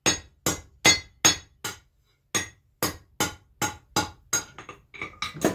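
Hand hammer forging a knife blade on an anvil to bevel it, about two to three blows a second, each with a short metallic ring. There is a brief pause near the middle, then the blows come quicker and lighter toward the end.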